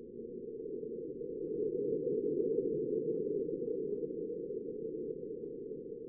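Wind on Mars as recorded by the InSight lander: a low rumbling rush that swells to a gust about two seconds in and slowly eases off, with a few faint ticks.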